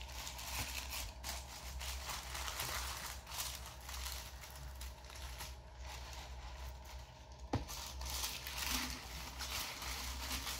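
Honeycomb kraft-paper wrapping and tissue paper crinkling and rustling as hands pull them apart, with one sharper click about halfway through.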